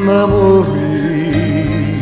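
Slow ballad: a singer holds a long note with vibrato over the accompaniment.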